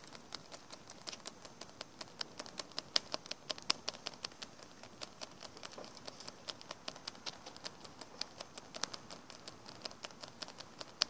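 Quick, irregular clicks and taps, about four or five a second, as small hard-plastic Littlest Pet Shop toy figures and a toy bowl are handled close to the microphone.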